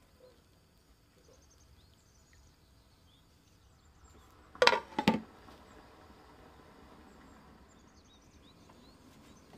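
Two sharp clinks on the stainless steel wok, about half a second apart, around halfway through, over faint bird chirps in the background.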